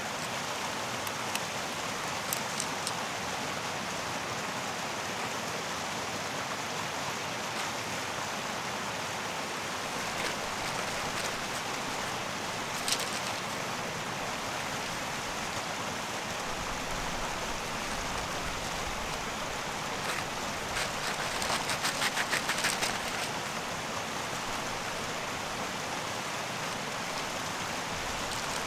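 Steady rushing of a mountain stream. About halfway there is a single sharp click, and about three-quarters of the way through a quick rattling run of clicks as camping gear is handled.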